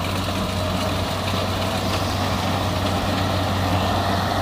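Kubota rice combine harvester running steadily while cutting rice at close range: a steady diesel engine hum with a steady higher whine over it.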